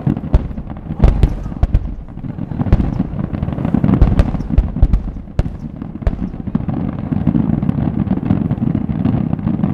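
Fireworks finale barrage: many aerial shells bursting in quick succession, sharp cracks and booms overlapping on a continuous low rumble.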